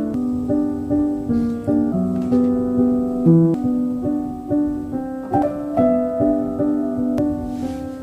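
Piano music: a melody played at an even pace, about two notes a second, over sustained lower notes.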